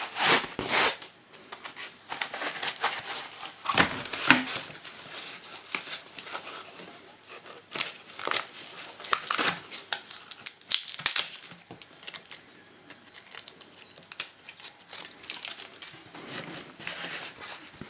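Packaging being handled: paper and plastic wrapping crinkling and rustling, with irregular light taps and scrapes, as a tablet cover is freed from its insert.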